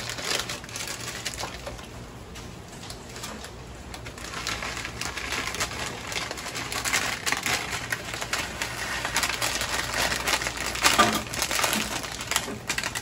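Plastic instant-ramen packet crinkling in the hands and being torn open, in a dense run of irregular crackles that grows busier from about four seconds in.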